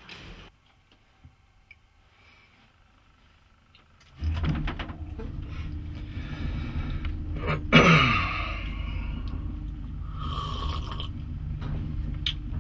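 Lift car running with a steady low rumble that starts about four seconds in. About halfway through comes a loud burp that falls in pitch, and near the end a slurp from a paper cup.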